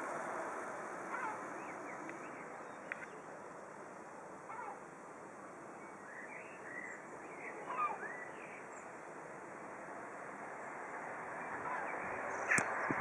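Scattered short bird chirps over a steady rushing background noise, with a sharp click near the end.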